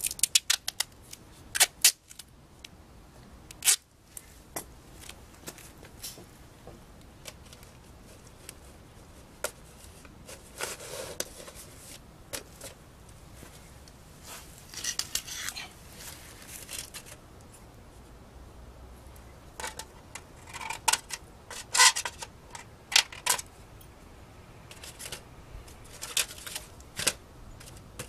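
Scattered sharp clicks, crinkling and scraping as a cone of thin metal roofing flashing and a roll of tape are handled, with a quick cluster of clicks in the first two seconds.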